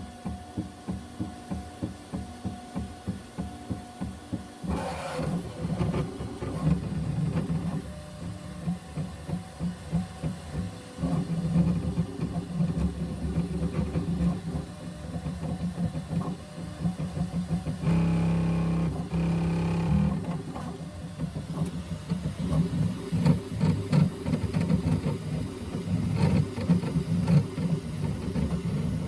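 3D printer running and making a terrible, abnormal mechanical noise. Its motors give a pulsing buzz, regular at about two to three pulses a second at first, then busier and more irregular, with a steady held tone a little past halfway.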